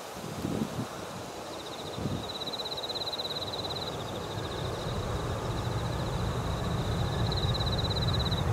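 Low rumble of a Boeing 737-800's CFM56 jet engines on final approach, growing steadily louder as the airliner closes in. A high, rapidly pulsing trill repeats on and off above it, with a few gusts of wind on the microphone in the first two seconds.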